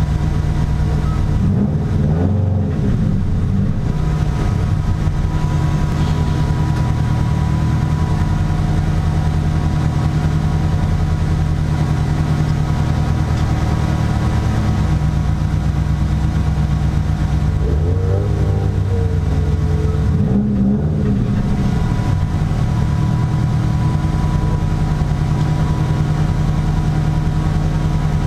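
Competition car's engine idling, heard from inside the caged cabin, with short blips of the throttle about two seconds in and again around eighteen to twenty-one seconds in.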